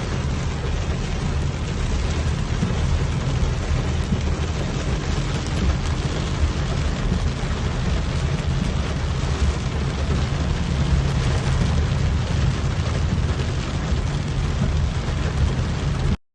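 Heavy monsoon rain pouring steadily, a dense hiss with a deep, steady rumble underneath. It cuts off abruptly near the end.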